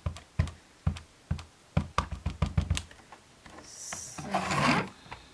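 Stampin' Up! ink pad dabbed repeatedly onto a large clear stamp to ink it: a run of light taps, about two a second, quickening around two seconds in. A short scraping rustle follows near the end.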